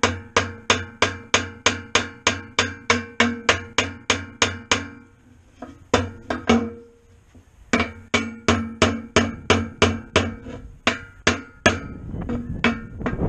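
Brass hammer tapping a new bearing into a disk harrow's bearing housing, the blows landing on the outer race and the housing rim: light, rapid, ringing metal taps about five a second. The taps break off for a couple of seconds in the middle, with only a stray tap or two, then resume. Wind rumbles on the microphone near the end.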